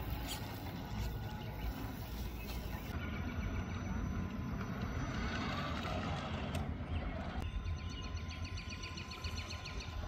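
Traxxas TRX-4 Bronco RC crawler's electric motor and gears whirring as it crawls, over a steady low rumble. The sound changes abruptly about three and seven and a half seconds in, with fast regular ticking near the end.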